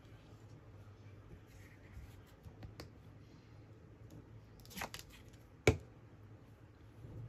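Paper-craft handling: a card and cheesecloth fiddled with by hand and a glue stick rubbed across the card, with small ticks and a brief scrape. A single sharp click a little before the end is the loudest sound.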